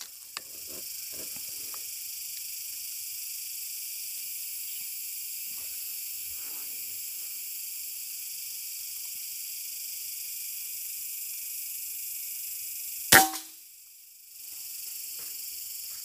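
A single PCP air-rifle shot, one sharp crack that dies away fast, late on over a steady high insect drone. The drone cuts out for about a second after the shot. Light rustling near the start.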